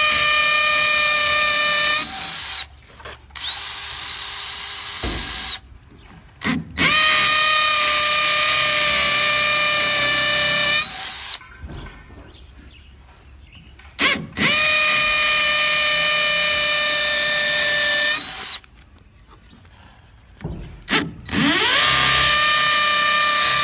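Dongcheng cordless hammer drill boring into red brick: its motor whines at full speed in about four runs of a few seconds each, with short pauses between, and the pitch rises each time it spins up.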